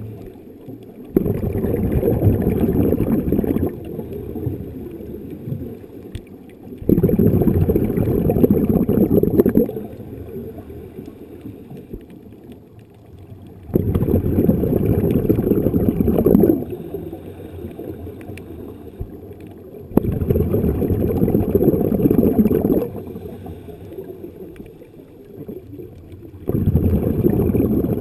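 A Snuba diver's regulator releasing exhaled bubbles underwater: five bursts of bubbling rumble, each about three seconds long and about six seconds apart, one per breath, with quieter gaps between.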